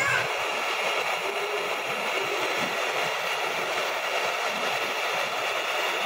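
Gas torch flame hissing steadily as it heats a copper filter drier and its steel tube before soldering.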